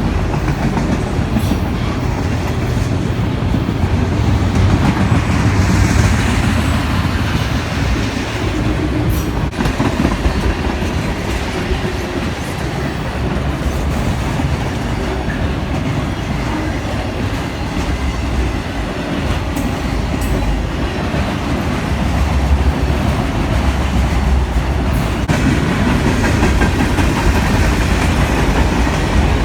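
Freight train rolling past at close range: a steady rumble of wheels on rail with occasional sharp clicks and clatter from the cars.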